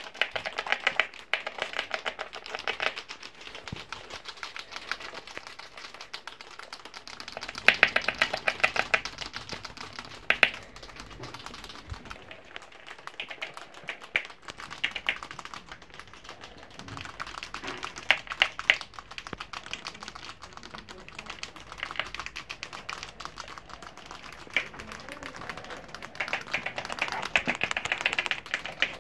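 Pet rats crunching and gnawing raw, uncooked pasta: rapid clicking crunches that come in bursts of a second or two, with quieter pauses between.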